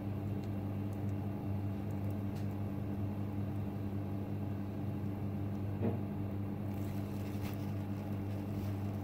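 A steady low electrical hum, with a couple of faint soft clicks about six and seven and a half seconds in.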